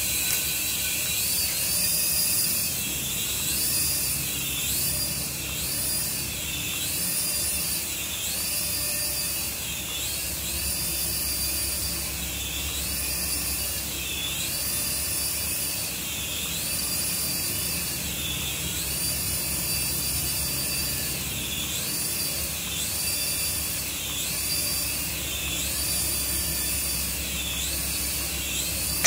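Small electric motors and twin coaxial rotors of a toy RC helicopter whirring in flight. The high-pitched whine rises and falls about once a second as the motor speed changes to keep it hovering.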